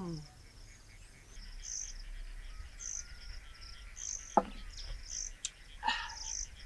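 Outdoor insect chorus with short high chirps repeating about once a second over a steady high hiss. About four seconds in comes a single sharp knock, a glass set down on a wooden table.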